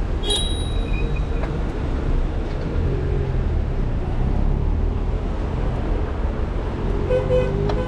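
Slow, congested street traffic heard from close among the cars: engines running steadily with road rumble. A brief high-pitched tone sounds about a third of a second in.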